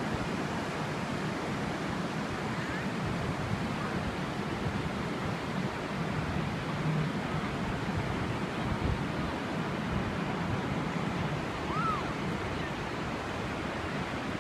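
Steady wash of waves on a shore, mixed with wind buffeting the microphone. A brief faint chirp sounds near the end.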